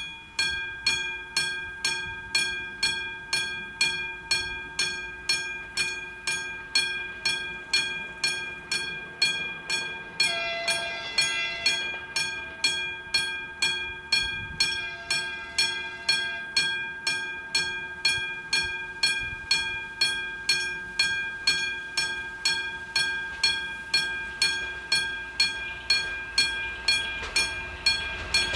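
Railway level-crossing warning bell (AŽD 97 crossing signal) ringing in even strikes about twice a second, starting suddenly. A second, horn-like tone sounds briefly twice, about ten and fifteen seconds in.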